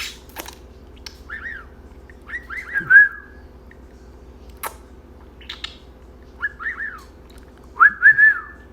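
Pet budgie whistling: four short runs of gliding, up-and-down whistled notes, the last and loudest ending on a held note near the end, with a few sharp clicks in between.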